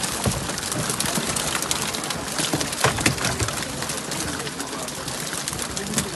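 A boatload of freshly caught fish flapping on a pile in a wooden boat's hull: a busy scatter of small wet slaps and taps, one sharper about three seconds in, over a steady hiss.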